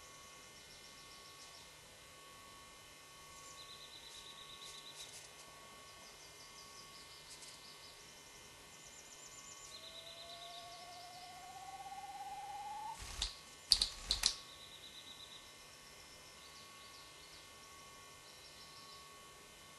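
Displaying male Siberian spruce grouse: a quick series of three or four loud, sharp wing claps about thirteen seconds in, preceded by a slowly rising whistle lasting about three seconds. Small songbirds sing short high-pitched phrases throughout, over a faint steady hum.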